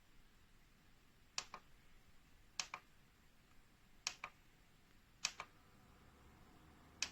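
Faint clicks at a slow even pace: five double clicks, each like a button or switch pressed and released, about one every second and a half.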